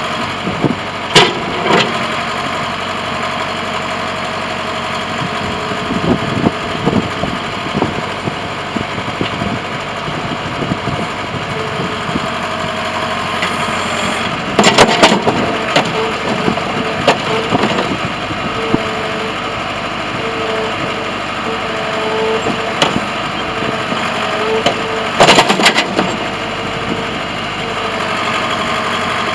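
Cat 416 backhoe loader's diesel engine running steadily, with loud sharp clanks about a second in, around halfway and again near the end, and a repeating beep in the middle.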